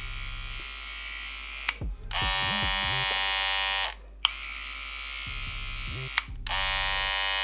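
Two electric T-blade hair trimmers, a Lipfi's Barbershop trimmer and a Wahl Detailer, running in turn for a sound comparison: a quieter buzz alternates with a louder, richer buzz, twice each, with switch clicks between the changeovers.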